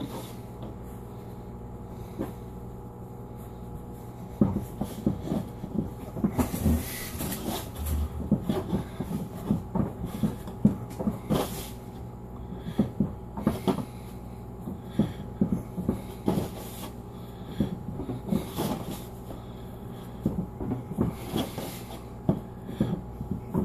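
Dough being kneaded by hand on a countertop: irregular soft thumps and pats as it is pressed and turned, starting about four seconds in.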